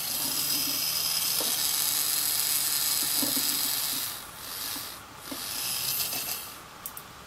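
Small electric motor of a two-AA-battery toy torpedo running with a high whine as it spins the propeller. It drops out about four seconds in, runs again and stops near the end. The motor is rubbing against something inside the hull because it was pushed in too far.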